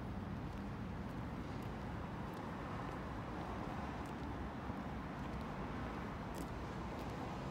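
Steady traffic noise from an elevated expressway and nearby road: an even low hum and hiss with no single vehicle standing out.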